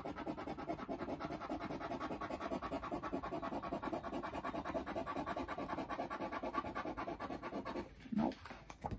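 Scratch-off lottery ticket being scratched with a round blue scratcher: rapid back-and-forth rasping strokes across the ticket's coating, stopping about eight seconds in.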